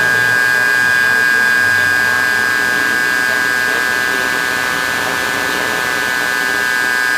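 Live electronic soundscape: a dense, steady drone of many held tones with a hiss over it.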